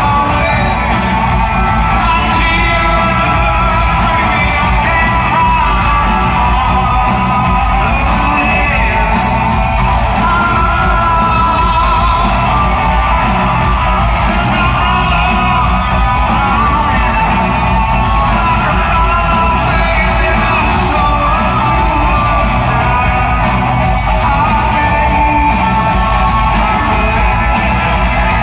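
Live rock band in a large hall: a male singer belting over electric guitar and drums, heard from the crowd.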